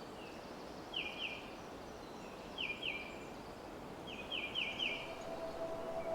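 A bird calling in short, sharply falling high notes, repeated in quick groups of two to four, over a steady hiss of forest ambience. Soft sustained music fades in near the end.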